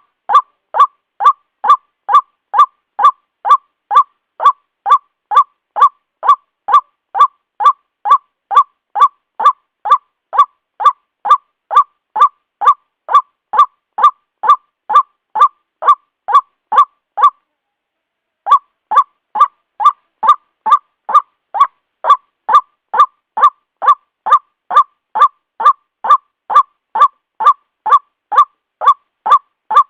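White-breasted waterhen (ruak-ruak) calling, a short harsh note repeated evenly at about two a second, with a pause of about a second just past the middle.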